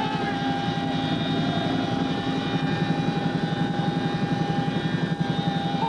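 Cabin noise inside a CH-47 Chinook tandem-rotor helicopter: a fast, even rotor beat under a steady high whine, continuous and loud.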